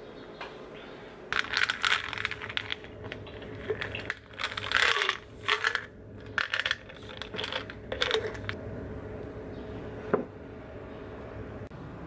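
Pills rattling inside a plastic supplement bottle as it is shaken and tipped out, in several bursts, with a single click near the end.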